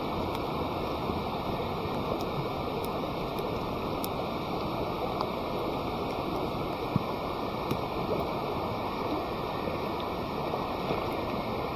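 A wood campfire burning well after flaring up: a steady rushing of flames with scattered crackles and pops, one louder pop about seven seconds in.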